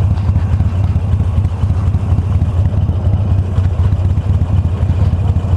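Harley-Davidson Iron 883's air-cooled V-twin engine running steadily with a low, rapidly pulsing throb.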